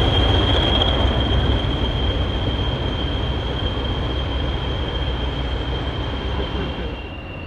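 Diesel locomotive running and pulling away, its low engine rumble and wheel noise slowly fading. A steady high-pitched squeal of wheel flanges on the curving track carries on over it.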